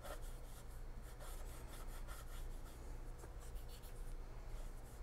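Cotton swab rubbing chalk pastel into sketchbook paper to blend the colour, a faint run of short scratchy strokes repeating a few times a second.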